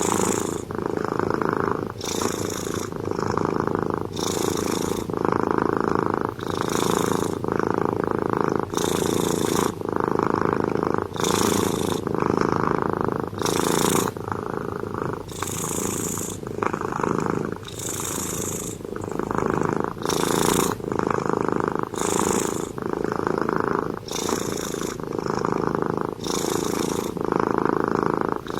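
Domestic cat snoring: a continuous rattling breath sound, with a hissing breath about every two seconds.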